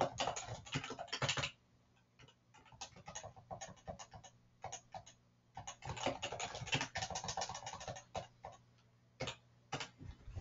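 Typing on a computer keyboard: quick runs of keystrokes in several bursts, with short pauses between them.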